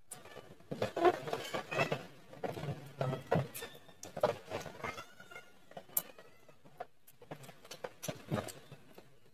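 Close-up eating sounds of a child chewing spicy octopus and fresh greens: wet chewing and lip-smacking with crisp leaf crunches and light clicks of chopsticks, in irregular bursts.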